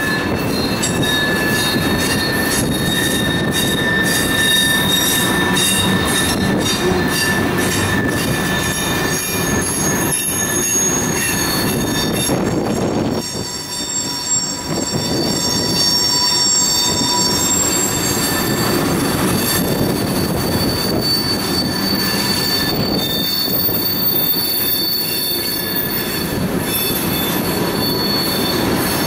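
Freight train of steel hopper cars rolling past: steady rumble and rattle of wheels on the rails, with thin, high wheel squeal sounding over it. The sound eases briefly about halfway through, then picks back up.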